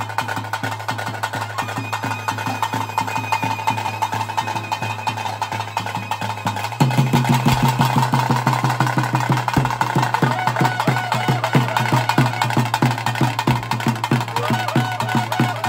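Traditional percussion music: fast, even drum strokes under a steady, high held tone. The drumming grows louder and denser about seven seconds in.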